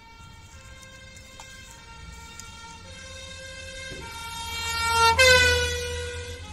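Electronic toy fire-truck siren: a buzzy tone stepping back and forth between higher and lower notes. It grows louder to a peak about five seconds in, where the pitch jumps up and then sags.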